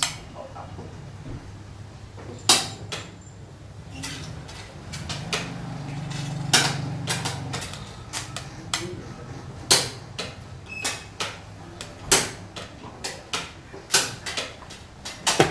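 Plastic Chinese chess (xiangqi) pieces clicking as they are handled and set down on a wooden board: a string of sharp, irregular clacks, a few of them much louder than the rest.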